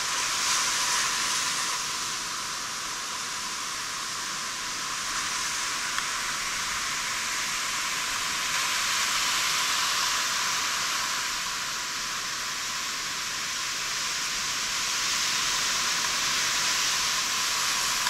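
Surf from a rough sea washing onto a beach: a steady, hissy wash that swells louder now and then, with hardly any low rumble.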